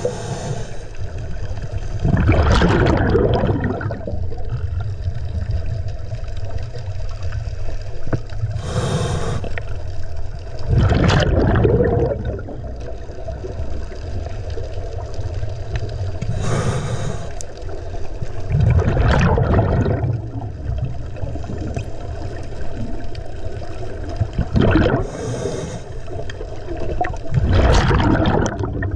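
Scuba diver breathing through a regulator underwater: four breaths, each a short hiss of inhaled air followed a couple of seconds later by a louder gurgling rush of exhaled bubbles, about every eight seconds. A steady low rumble sits underneath.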